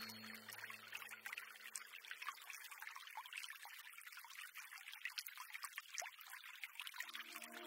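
A soft sustained music tone fades out over the first two seconds, leaving a faint trickling, crackling water sound. A new sustained music chord comes in near the end.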